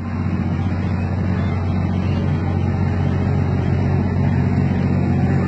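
A steady low engine hum, even and unchanging.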